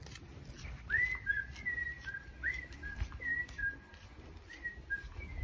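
A person whistling a short tune, starting about a second in: a string of quick notes, a few sliding up into a held note.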